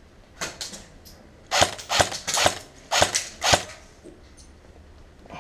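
Airsoft replica gun firing single shots: two quieter shots, then a quick string of about seven sharp, loud shots over two seconds.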